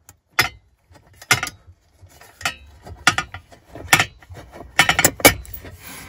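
Lower dashboard trim panel of a 2018 Ford F-150 being pulled loose by hand: a series of sharp, irregular clicks and knocks from its plastic clips and metal bracket, coming more often toward the end.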